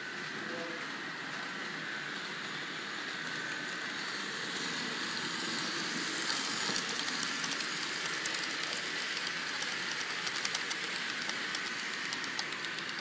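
Model passenger train running past on the layout's track, its wheels clicking rapidly over the rail joints from about six seconds in, over a steady hiss.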